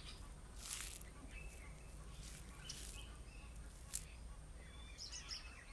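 Quiet bush ambience with scattered small bird chirps and a few short rustles of leaves and branches as a Masai giraffe browses in an acacia tree.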